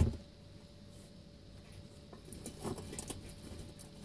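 A sharp thump at the very start. Then, from about two seconds in, a run of quick small clicks for a second and a half: a central bearded dragon biting and chewing a piece of butternut squash.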